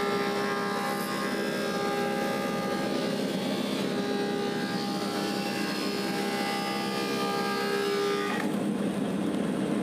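Woodmaster 725 planer running with its helical cutterhead, taking a final light pass on a walnut slab: a steady machine whine of several held tones over a rushing noise. About eight seconds in, the higher whine drops away and the sound becomes duller.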